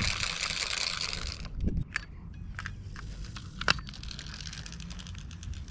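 Fishing reel being cranked with a fast, fine rattling that stops after about a second and a half, followed by scattered clicks and handling knocks over a low rumble of wind.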